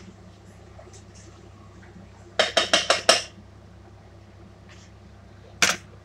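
Kitchenware clattering as a pot and utensils are handled: a quick run of about five clinks about two and a half seconds in, and a single clink near the end.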